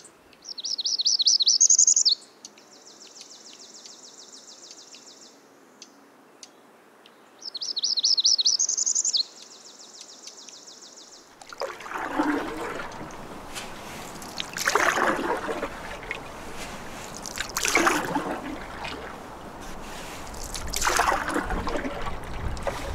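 A songbird sings twice, each song a quick run of rising high notes followed by a flat trill. Then a canoe paddle strokes through the water about every three seconds, four swishing splashes.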